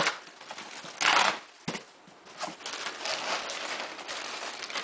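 Package being opened by hand: cardboard and packing material rustling and crinkling, with a loud noisy burst about a second in and a sharp click shortly after.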